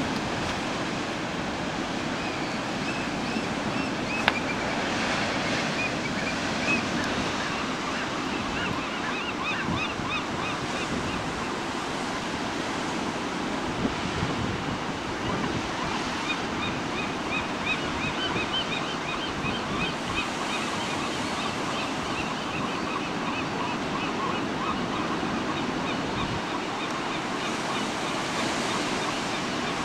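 Ocean surf breaking steadily on rocky sea stacks, with gulls calling in long runs of quick, repeated high notes over it for much of the time. A single sharp click a little after four seconds in.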